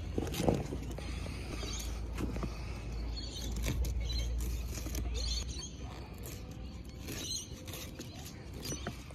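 Small creaks, scratches and clicks of a hand picking and scraping along the edge of a black car body-kit side skirt, over a low handling rumble that fades about halfway through.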